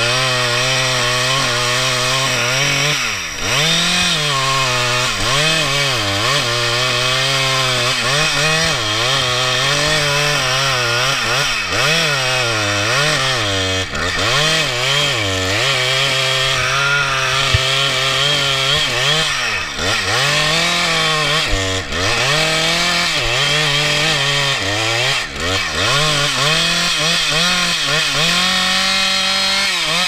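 Two-stroke gas chainsaw running at full throttle while cutting into an oak trunk. Its engine note sags and recovers again and again as the chain bites into the wood, and it speeds up briefly near the end.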